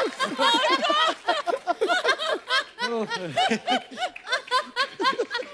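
Laughter: a long run of short, pitched 'ha' bursts, several a second.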